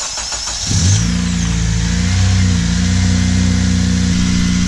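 Honda Civic Si's 2.0-litre K20 four-cylinder engine cranked by a newly fitted remanufactured starter. It catches about a second in, flares briefly and settles into a steady idle. No starter rattle is heard: the replacement has cured it.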